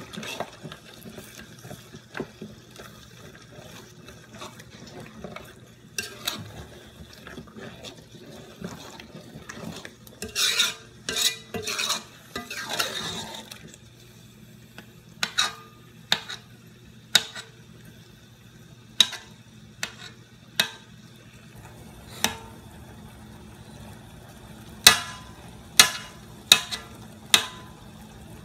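Metal spoon stirring and mashing a thick eggplant-and-vegetable stew in a large aluminium pot, scraping through the mash and knocking against the pot's side, with a low steady hum underneath. The knocks grow sharper toward the end, coming about once a second.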